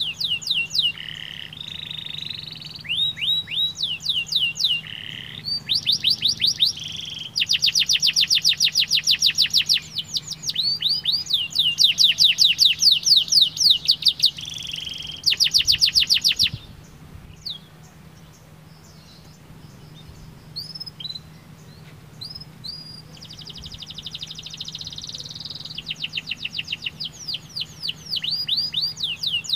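Domestic canary singing: fast rolling trills of rapidly repeated down-sweeping notes in runs of one to three seconds. About halfway through the song thins to a few scattered chirps, then the trills return near the end.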